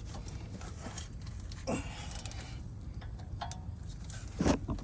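Hand tools working on vehicle brakes: scattered ratchet clicks and small metal knocks, with a louder knock about two seconds in and the loudest one near the end.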